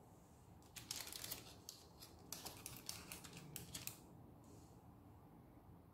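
Knife sliding under squares of soft burfi and scraping on the baking paper lining the tray, with the paper rustling: a quick run of short, crisp scratches for about three seconds, starting about a second in.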